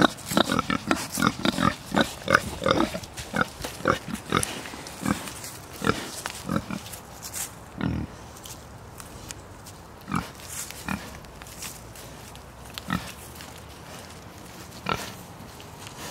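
Several pigs grunting: short grunts come in quick succession at first, then only now and then, a couple of seconds apart, toward the end.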